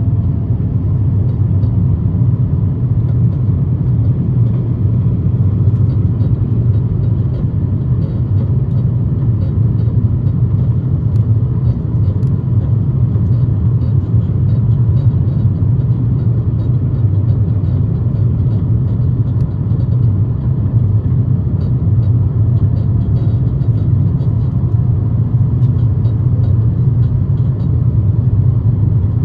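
Steady low rumble of a jet airliner's cabin in flight: engine and airflow noise, unchanging, with faint scattered ticks.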